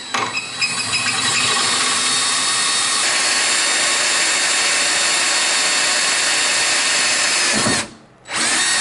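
Power drill boring into the metal of a snowmobile's running board, a steady whine that stops about three-quarters of the way through and starts again half a second later.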